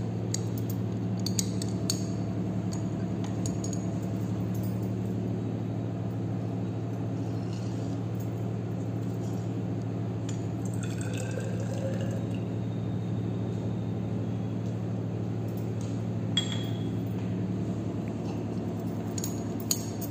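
Glassware clinking now and then as a glass Nessler cylinder is handled, with a last clink near the end as it is set into a test-tube rack, over a steady low hum.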